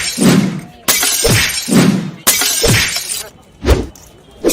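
A rapid series of loud crashing, shattering bursts, about one every 0.8 seconds, some with a low thud beneath.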